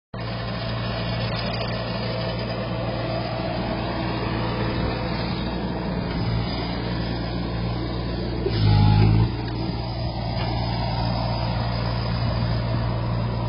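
Engine of a stand-on compact tracked loader running steadily while it carries a balled-and-burlapped tree, with a brief louder surge about eight and a half seconds in.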